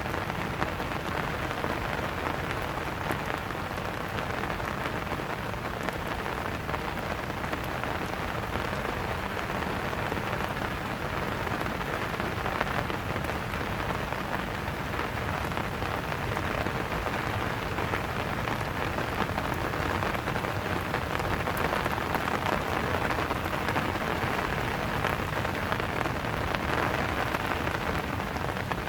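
Steady rain falling and pattering on surfaces, a continuous even hiss dotted with small drop ticks.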